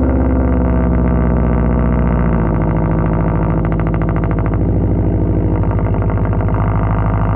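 Subaru WRX STI turbocharged 2.5-litre flat-four idling high on a cold start through an AWE Track Edition cat-back exhaust, a steady exhaust note that settles slightly lower a couple of seconds in.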